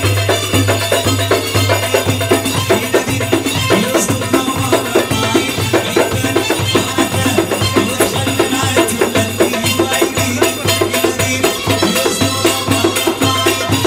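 Live Egyptian folk music for a tanoura dance: hand drums beating a fast, steady rhythm over a deep beat about twice a second.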